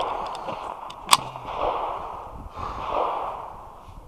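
Slow, deep breaths close to the microphone, one roughly every second and a half, as the shooter settles before his run. A single sharp crack sounds about a second in.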